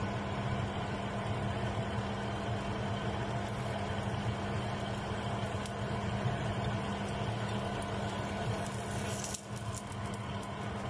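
Oiled dal paratha cooking on a hot tawa over a steady low hum, with scraping and clicks of a spatula on the pan about nine seconds in as the paratha is lifted and flipped.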